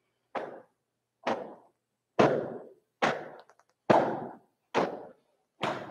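Hands and arms slapping against the body in a Pigua (Piguazhang) arm-swinging exercise. There are seven sharp slaps in an even rhythm, a little faster than one a second, each with a short room echo.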